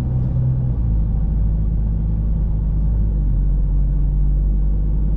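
A car engine running steadily, a low rumble heard from inside the car.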